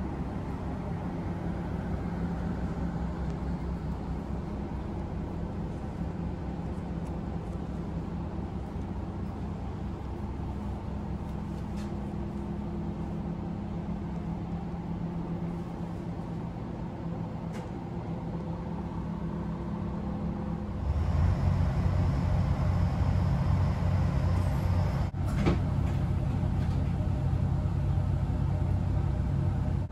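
Diesel railcar engine idling, heard from inside the passenger car as a steady low hum. About two-thirds of the way through it becomes louder and deeper, and a single short knock follows a few seconds later.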